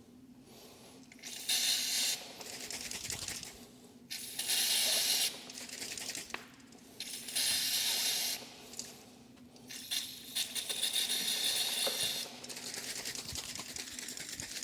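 Aerosol chain-cleaner spray hissing onto a motorcycle chain in four bursts, the last one the longest at about two seconds.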